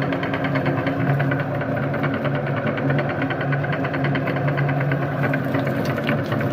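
Electric meat grinder running steadily as it grinds jelly candy: a motor hum with a fast, even ticking over it.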